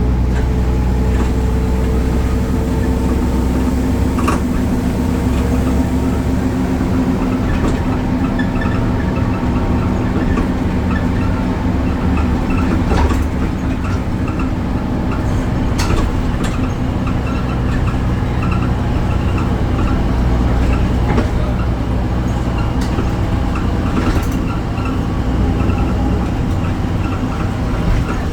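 Deutz diesel engine of a BredaMenarini Avancity Plus city bus running steadily, heard as a continuous low drone, with a few scattered sharp clicks and rattles.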